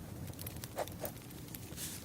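Campfire crackling: scattered small pops and ticks over a low steady rumble, with two louder pops in the middle and a short hiss near the end.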